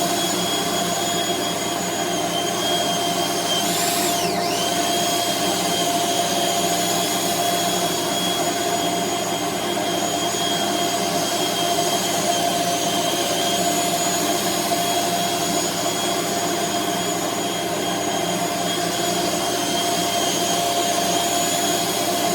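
Makita belt sander running steadily on wood trim, a constant whine over the rasp of the belt. Its pitch dips briefly and recovers about four seconds in.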